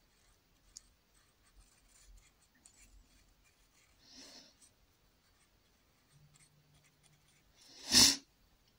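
Faint, scattered scratching of a paintbrush working acrylic paint onto canvas, with a short, much louder rush of noise about a second before the end.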